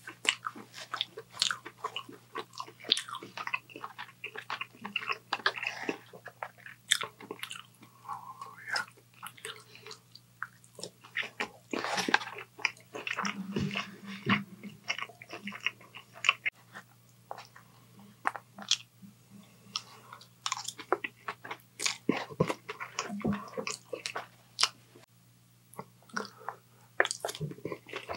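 Close-miked eating: bites into fried Chinese takeout and chewing, with many irregular crunches and wet mouth clicks over a faint steady low hum.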